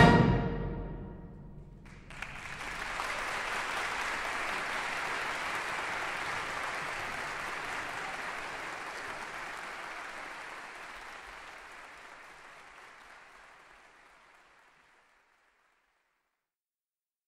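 The last chord of a wind band piece dies away, and about two seconds in an audience starts applauding; the applause holds for several seconds, then fades out.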